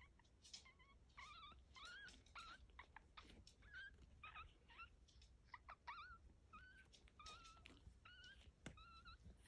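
Faint squeaking of newborn puppies as they nurse: many short, high squeaks, a few a second, some rising and falling in pitch, with scattered small clicks.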